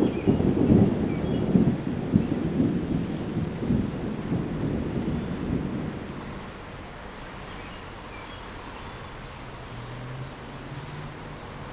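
Low rolling rumble of thunder, dying away about six seconds in.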